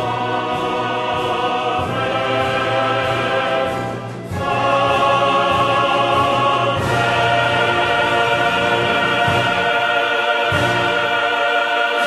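Background music with a choir singing long held notes over an orchestra. The music dips briefly about four seconds in, then swells louder.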